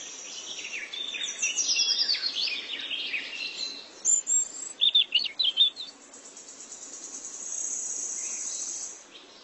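Small songbirds chirping and trilling in quick high calls and falling sweeps, busiest in the first half, followed by a steady high insect buzz for a couple of seconds near the end.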